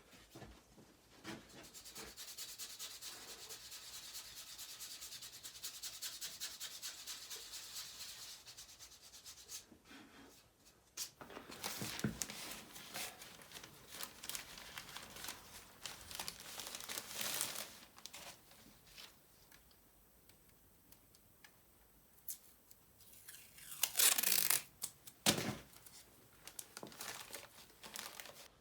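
Hand rubbing and scraping work on a BMW S1000RR's aluminium motorcycle frame: several seconds of fast, even strokes, a short pause, more uneven rubbing, and one louder sweep near the end.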